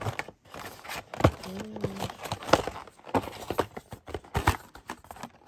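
Irregular knocks, taps and clicks of objects being handled, with light rustling; a short hummed voice sound comes in about a second and a half in.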